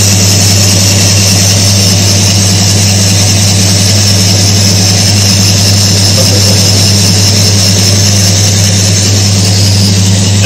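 Electric motor of a Timken-type oil friction test machine running steadily, a loud even hum with a hiss above it.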